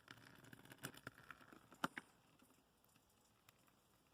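Near silence with a few faint clicks and rustles in the first two seconds, then nothing.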